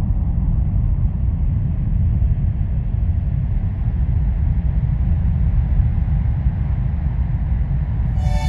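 A loud, deep, steady rumble with no distinct notes, used as a sound-design layer in an ambient album track. Pitched music comes in right at the end.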